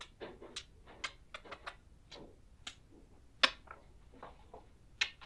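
A string of quick smacking kisses on a cheek, short sharp smacks at an uneven pace, the loudest about three and a half seconds in.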